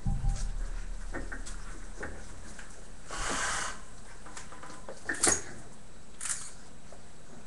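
Scattered knocks, scuffles and clicks from bearded collie puppies moving about and playing on a wooden floor, with a short rustling burst about three seconds in and two sharp clicks just after five seconds.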